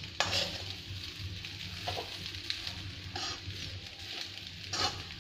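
Metal ladle scraping and stirring egg fried rice in a kadai, four strokes against the pan over a steady frying sizzle.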